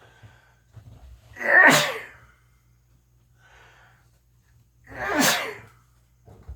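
A person sneezing twice, about three and a half seconds apart. Each sneeze is a loud, short blast, with a softer breath drawn between them.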